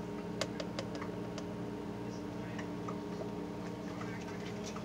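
A few faint, light clicks from plastic measuring pitchers being handled as lye solution is poured into hot oils, over a steady background hum.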